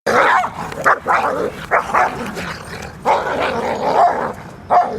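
A dog barking loudly and repeatedly, in a string of short barks with a longer run of barking in the second half.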